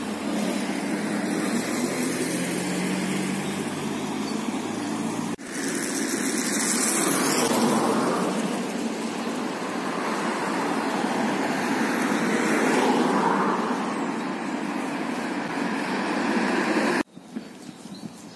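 Road traffic: cars passing along the street, a steady rushing noise that swells and fades as vehicles go by. The sound breaks off abruptly twice, and near the end it drops to a much quieter background.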